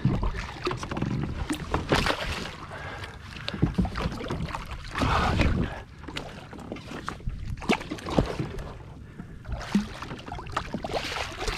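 Water splashing and sloshing around a Hobie Outback kayak, with irregular knocks and clunks on the hull, a louder splash about five seconds in, while a hooked mahi-mahi is fought beside the boat.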